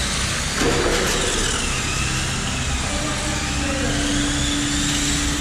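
Radio-controlled Tamiya cars racing on concrete, their electric motors whining up and down in pitch as they speed up and slow down, over a steady low rumble. A steady hum joins about three seconds in.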